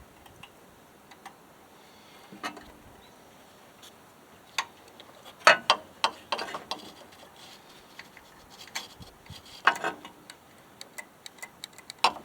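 Scattered clicks and light metallic clinks of small mower carburetor parts and tools being handled, in irregular clusters, busiest about halfway through.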